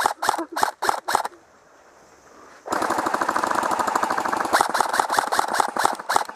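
Airsoft rifle firing fast strings of shots: rapid clicks for about a second, a short pause, then a longer, faster continuous burst from nearly three seconds in to the end.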